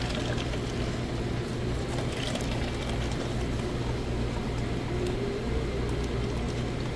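Black coffee pouring in a steady stream from a dispenser spout into a paper cup, over a steady low hum.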